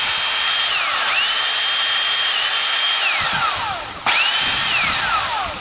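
Karcher K2 pressure washer's brushed electric motor and pump running out of its case, a steady high whine. It dips briefly about a second in, then winds down with a falling pitch, starts again sharply and winds down once more near the end. The motor is springing to life after refusing to run, an intermittent fault that the owner puts down to the switch or a break in the mains cable.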